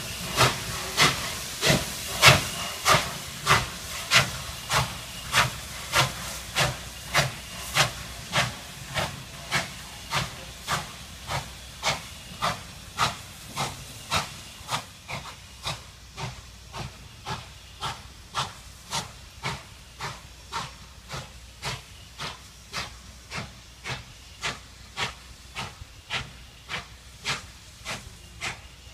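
Exhaust of N&W 611, a J-class 4-8-4 steam locomotive, chuffing in an even rhythm of a little under two beats a second over a steady steam hiss, as it works a passenger train. The chuffs grow somewhat quieter over the first half.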